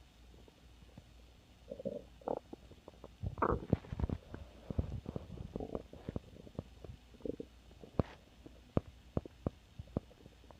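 Stomach growling and gurgling, heard close up. Faint at first, then a dense run of loud gurgles a little past three seconds in, followed by many short, sharp pops and squelches.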